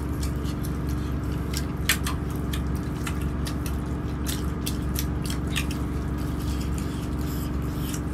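Steady low hum of a moving train carriage, with scattered short clicks and smacks of people eating rice and curry by hand from steel plates.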